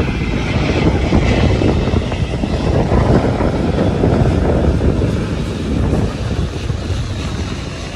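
Airbus A350-900's Rolls-Royce Trent XWB turbofan engines on landing approach, a loud low jet rumble of the airliner flying past, strongest about three seconds in and easing a little toward the end.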